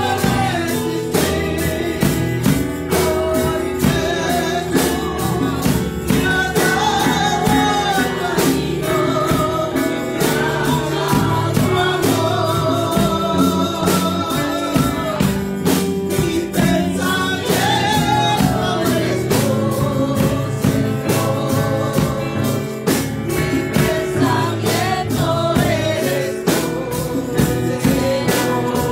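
Live gospel worship music: a woman singing lead into a microphone over electric bass and percussion keeping a steady beat.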